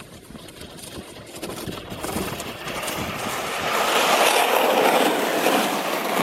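Plastic sled sliding over packed snow: a steady scraping hiss that grows louder over the first four seconds, then holds.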